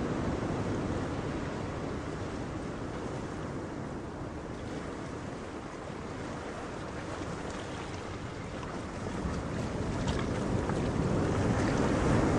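Ocean waves and wind: a steady rushing that eases slightly in the middle and swells louder near the end.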